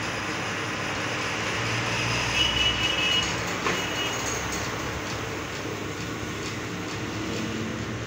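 Lathe running, spinning a spoked motorcycle wheel mounted on it: a steady mechanical noise, with a brief high squeal between about two and a half and four seconds in and a single sharp click near four seconds.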